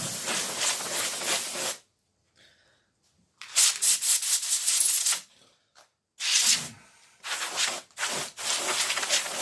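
Can of compressed air (air duster) spraying in hissing blasts to blow dust off a TV circuit board: two blasts of about two seconds each, then four short quick ones near the end.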